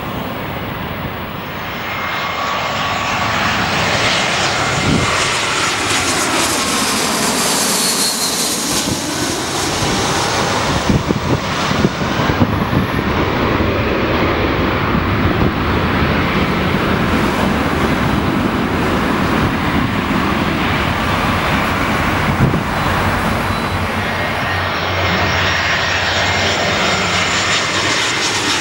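Jet engines of Airbus A320 airliners on landing approach: a steady, loud jet noise with whining tones that glide down in pitch as an aircraft passes, and another glide near the end.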